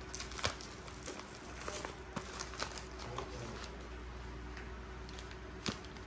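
Faint handling noise: a few small scattered clicks and light rustling as items are handled, with a sharper click near the end.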